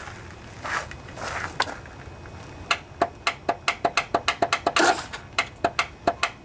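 Riding mower's starter circuit clicking rapidly, about five sharp clicks a second, starting a little under three seconds in, as the key is held to start the Briggs & Stratton Intek twin: the battery is too weak to crank the engine.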